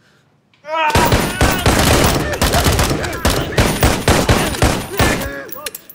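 Rapid gunfire from a pistol and a rifle, a dense run of shots lasting about four and a half seconds that starts about a second in and stops abruptly. A yell comes just before the shooting and another cry near the end.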